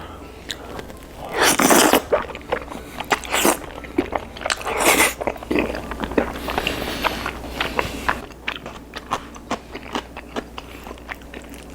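Biting into and chewing crispy fried chicken: three loud crunches in the first five seconds, then a run of many smaller crunches and mouth clicks as it is chewed.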